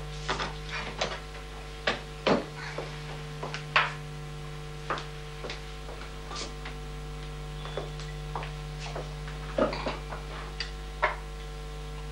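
Irregular light clinks and knocks of crystal glasses and tableware being handled, over a steady electrical mains hum.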